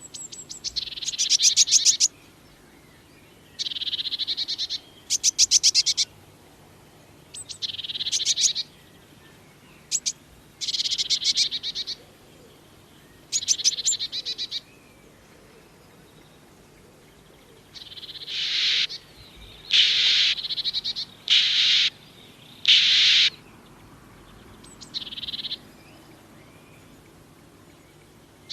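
Blue tits calling: about a dozen short, buzzy, rapidly pulsed high-pitched calls come at irregular intervals, with quiet gaps between them.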